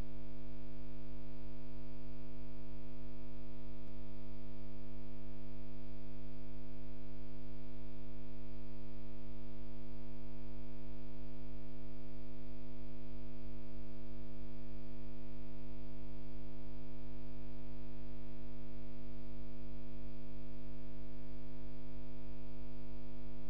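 Steady electrical hum and buzz: a fixed chord of many unchanging tones at an even level, with nothing else standing out.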